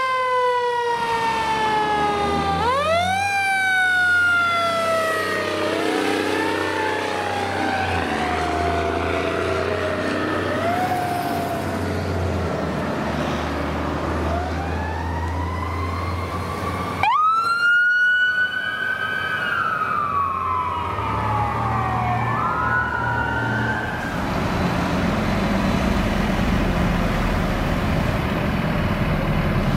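Fire truck sirens wailing, each climbing quickly and then winding down slowly, sometimes overlapping, over the low rumble of the truck's engine. The siren swells loudest about two-thirds of the way through, then fades, leaving engine and road noise.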